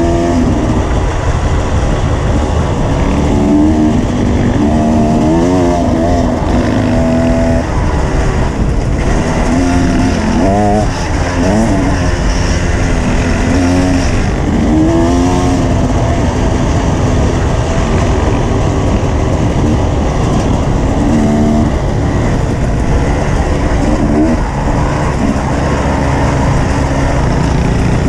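Off-road motorcycle engine running hard, its pitch rising and falling again and again as the throttle opens and closes, with heavy wind noise on the microphone.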